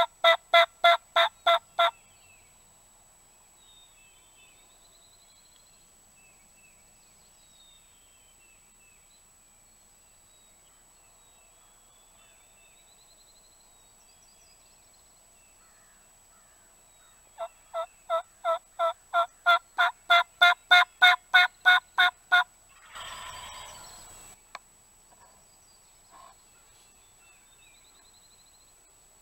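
Hen turkey yelps made on a hunter's turkey call, close and loud, in two long series of about three to four yelps a second, calling to gobblers. A short rustle follows the second series, and faint songbirds chirp between the series.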